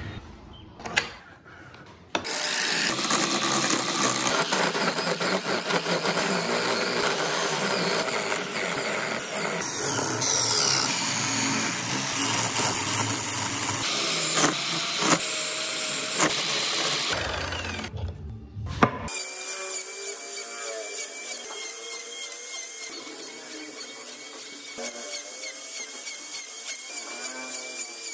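A small wood lathe spinning while a hand chisel cuts into the turning wooden wheel, a dense, steady scraping cut. Near the end a small handheld rotary tool takes over with a steady high whine, its bit cutting tread grooves into the wooden tyre in a quick series of short strokes.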